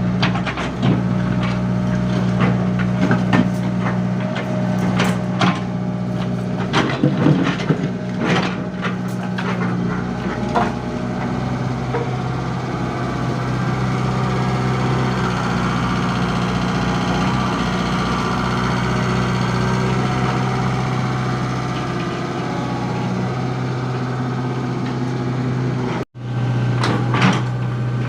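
Komatsu PC75 mini excavator's diesel engine running steadily under work, with repeated knocks and scraping clatter of the bucket and debris for the first ten seconds or so and again near the end. The sound cuts out completely for a moment about two seconds before the end.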